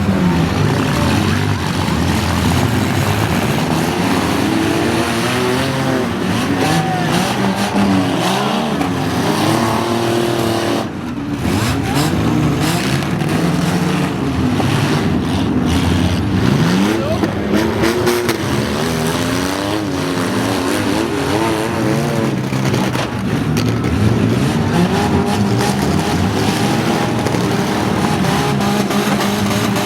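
Several demolition derby cars' engines revving, several at once, their pitch rising and falling over and over. The noise dips briefly about eleven seconds in.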